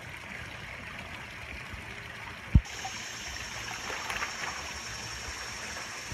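Steady trickling and splashing of water in a swimming pool, with a spa spillover pouring into it. A single dull thump about two and a half seconds in is the loudest sound.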